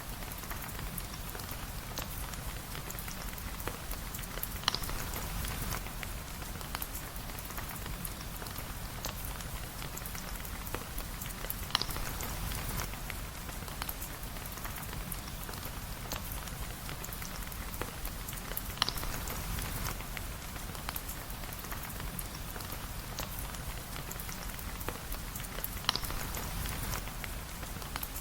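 Steady rain falling, a continuous hiss with fine ticks of drops, and a sharp click about every seven seconds.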